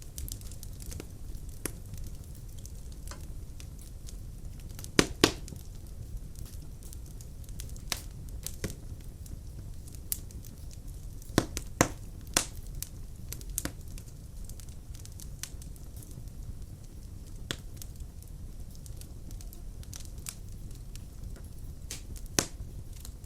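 Wood fire burning in a fireplace: a steady low rumble of flames with scattered crackles and sharp pops. The loudest pops come about five seconds in, twice around twelve seconds, and once near the end.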